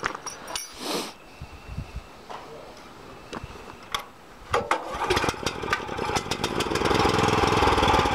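Grillo G110 walk-behind tractor's engine starting about halfway through, catching at once and building to a steady run. A few light knocks and handling noises come before it.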